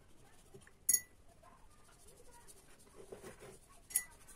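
Two light clinks about three seconds apart, each ringing briefly, as a paintbrush taps against a glass water jar, with faint handling sounds in between.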